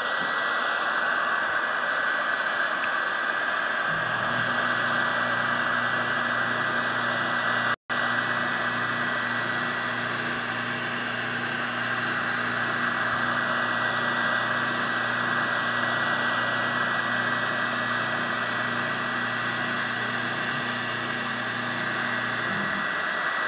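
Electric heat gun blowing steadily, held over iron nitrate stain on curly maple to heat it darker. A low hum joins about four seconds in and stops near the end, and the sound cuts out for an instant about eight seconds in.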